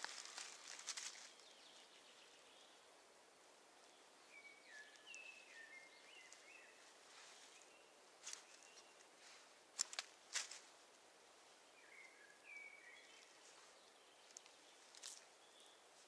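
Faint forest quiet in which a small songbird sings two short phrases of stepped whistled notes, a few seconds apart. A few faint clicks and rustles of handling sound close by, the sharpest a little past the middle.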